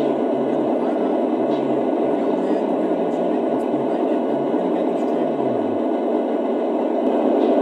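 A Lionel SD70ACE model locomotive's sound system plays the diesel prime mover at idle, a steady rumbling hiss from its onboard speaker. A muffled voice talks faintly underneath it and stops about six seconds in.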